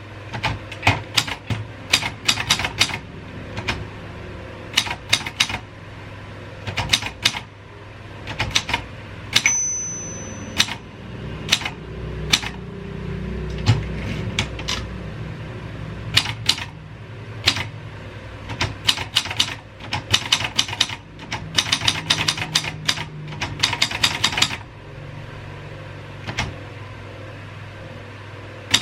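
Royal 202 manual typewriter being typed on: runs of sharp key strikes broken by short pauses. A single high ring lasts about a second around ten seconds in, and a low rumble sits under the typing in the middle.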